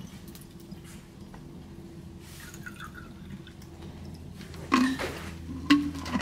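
Water being poured and dripping into a metal stovetop espresso pot, followed by two sharp metallic clinks about a second apart near the end.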